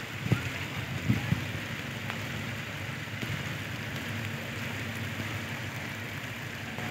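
Heavy rain falling, a steady hiss, with a few sharp thumps in the first second and a half. A faint low steady hum comes in about three seconds in.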